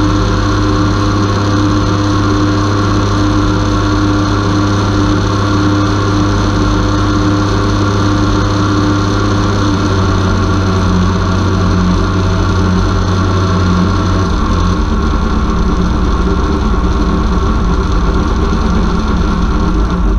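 Converted car alternator running as a brushless motor off a small 30 A drone ESC, belt-driving a second alternator as a load at around 30 amps: a steady electric motor drone with several steady tones. The tone shifts about halfway through.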